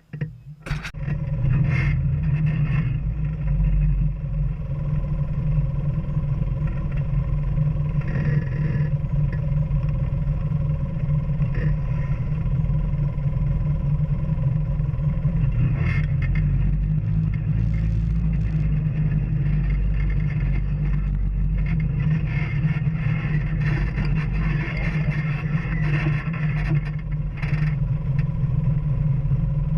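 Off-road vehicle engine running steadily under way on a dirt trail, with a few sharp knocks over the run. The sound cuts in abruptly at the start.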